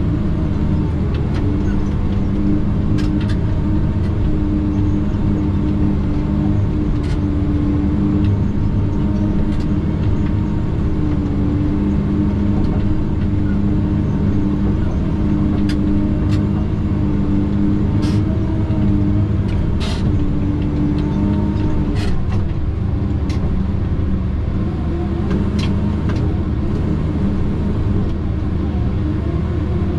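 Tigercat 610E skidder's diesel engine running steadily under work, with a few sharp clicks now and then.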